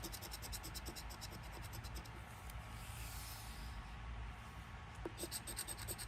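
Scratch-off lottery ticket being scratched, the coating scraped off in quick, evenly repeated strokes. The scraping stops for about three seconds midway and starts again near the end.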